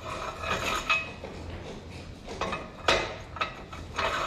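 Metal clinks and clanks from a Ford 9N tractor engine block on a rotating engine stand being handled, with a few sharp knocks, the loudest about three seconds in, and brief metallic ringing.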